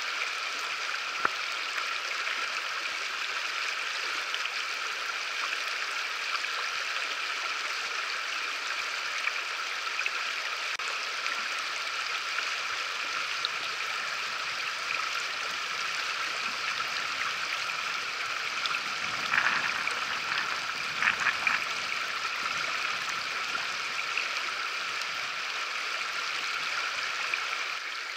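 River rapids rushing steadily, with a couple of brief louder sounds about two-thirds of the way through.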